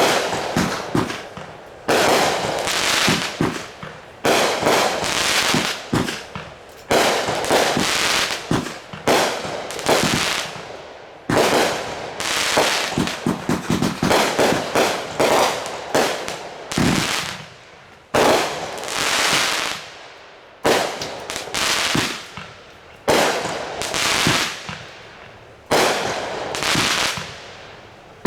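Consumer fireworks going off in a steady string of loud bangs, about one every one to two seconds. Each bang fades away over a second or two before the next.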